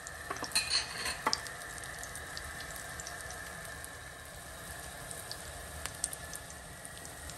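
Breaded cutlets shallow-frying in hot oil on a flat iron tawa: a steady sizzle with scattered small crackles of spattering oil, a few of them sharper in the first second or so.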